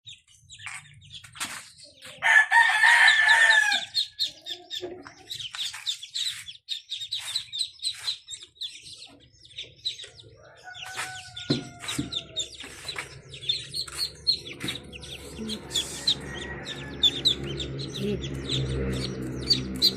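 Ducklings peeping constantly in quick high chirps, with a rooster crowing once, loudly, about two seconds in. A low steady hum comes in a little past halfway.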